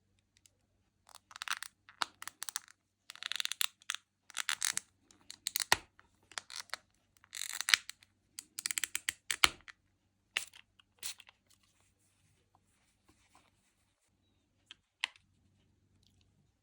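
A small hand file rasping in quick repeated strokes, about a dozen over some nine seconds, followed by a few light ticks and one sharp click.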